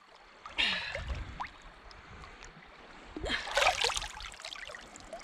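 Shallow water splashing and trickling as an arrowed fish is picked up out of it, with two louder splashy bursts: one about a second in and one a little past three seconds.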